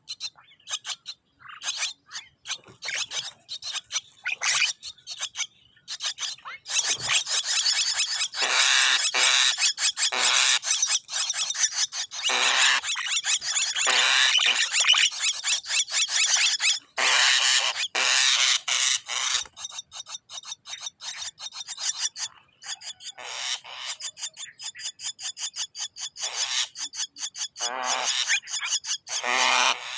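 Javan myna (jalak kebo) calling: rapid clicking and harsh, grating chatter in quick runs, busiest through the middle and again near the end.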